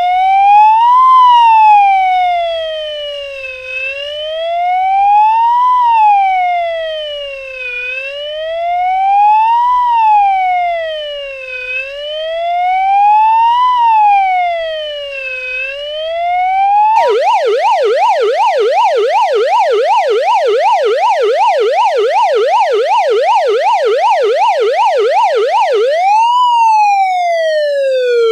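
Emergency vehicle siren in a slow wail, its pitch rising and falling about every four seconds. About two-thirds of the way through it switches suddenly to a fast yelp of roughly three sweeps a second, then returns to the slow wail near the end.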